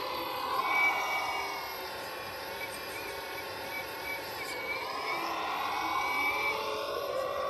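Whine of the electric hydraulic pump in an RST Model 1/14 Cat 330F RC excavator. Its pitch sinks slowly over the first four seconds or so, then climbs back up.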